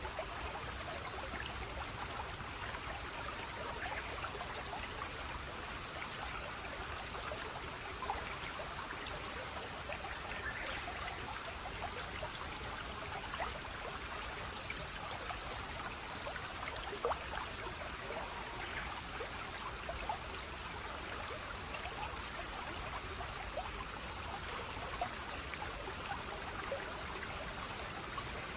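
Running water of a small stream, flowing and trickling steadily, with many small splashes and drips scattered through it.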